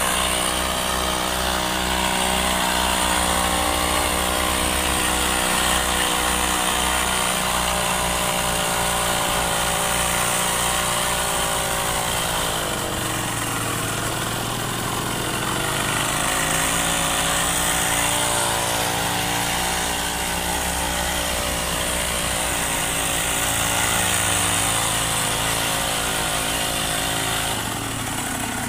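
Small two-stroke grass-cutter engine driving a homemade scooter, running under throttle through an exhaust made from a spray-paint can. The revs fall away about twelve seconds in, pick up again a few seconds later, and ease off near the end.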